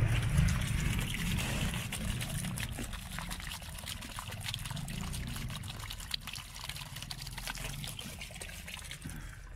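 An outdoor drinking fountain's jet of water splashing and trickling as he drinks from it, full of small splashy ticks, over a low rumble.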